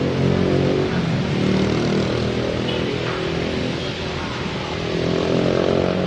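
An engine running with a slightly wavering pitch, over the steady hiss of heavy rain.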